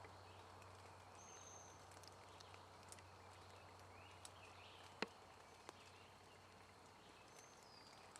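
Near-quiet outdoor ambience with a steady low hum, a couple of faint high chirps, and scattered small ticks and crackles, the sharpest about five seconds in.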